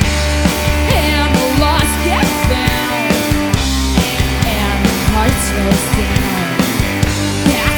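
Rock band playing loud grunge-style music on electric guitar, bass guitar and drum kit, with a steady drum beat under held bass notes and bending guitar lines.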